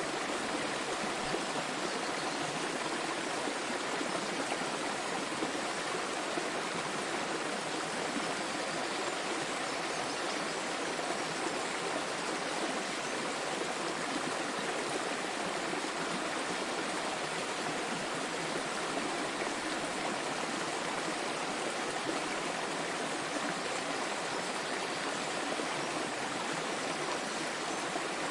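Small waterfall: water falling and splashing in a steady, continuous rush.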